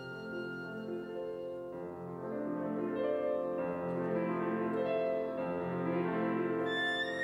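Instrumental background music of held keyboard chords with a melody on top, swelling louder a couple of seconds in.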